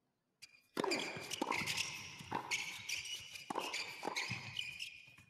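Tennis rally in a doubles point: rackets strike the ball about five times, a little under a second apart, each hit echoing in the indoor arena. Shoes squeak on the hard court between the shots.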